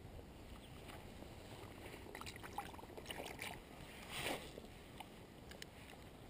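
Handling noise from a spinning rod and reel being gripped and moved: a run of small clicks and rustles, with one louder rustle about four seconds in.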